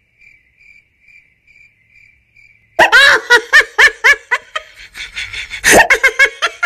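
Faint cricket chirping, about two chirps a second, cut off about three seconds in by loud laughter that carries on in quick bursts, with another loud burst near the end.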